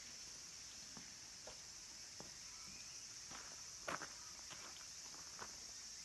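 A steady high drone of cicadas singing in the trees, with footsteps on gravel every half second to a second, the loudest about four seconds in.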